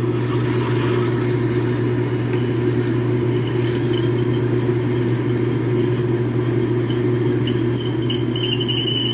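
Metal lathe running under load, its 2-horsepower electric motor and drive giving a steady hum while a 3/4-inch drill bit in the tailstock is fed into the spinning workpiece. A thin high whine comes in faintly partway through and grows stronger near the end.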